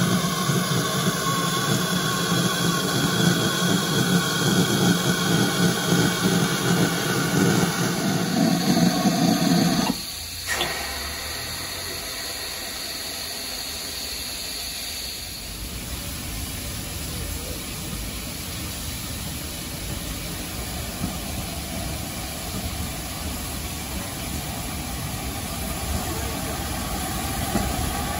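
A loud, steady rushing sound cuts off suddenly about ten seconds in. A click follows, then a thin steady hiss of steam from a GWR 28XX 2-8-0 steam locomotive at rest. For the last twelve seconds or so, the locomotive works slowly past hauling coaches, a steady rumble.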